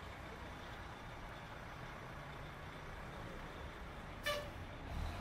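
Faint outdoor street ambience: a steady low rumble of distant traffic, with one brief high-pitched tone about four seconds in.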